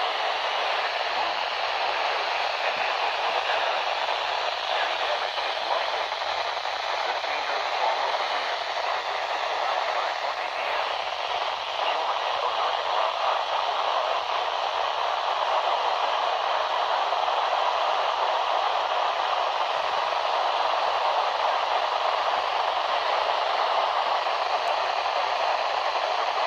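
Steady static hiss from a weak, poorly received TV broadcast signal, played through the set's speaker: the sign of bad reception.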